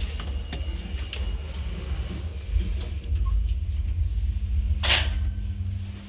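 Schindler 5400AP elevator car travelling down. A continuous low rumble, with a steady hum setting in about halfway, and one short burst of noise near the end.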